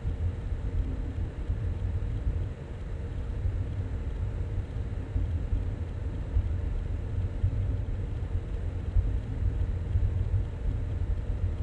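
A steady low rumble with a faint steady hum above it, even throughout, with no distinct events.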